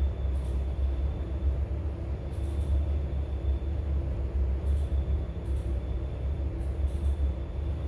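Mother cat purring steadily as a continuous low rumble while her kittens nurse.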